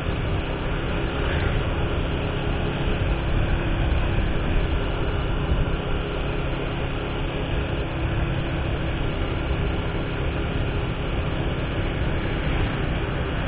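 Steady engine and road noise of a vehicle travelling along a street, heard from a camera riding on the vehicle.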